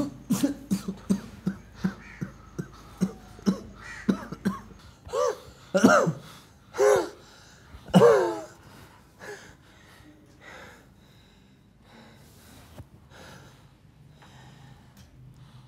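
A sick man in a coughing fit: short harsh coughs about two a second, then a few longer, louder strained gasping coughs, easing off to faint breathing in the last several seconds.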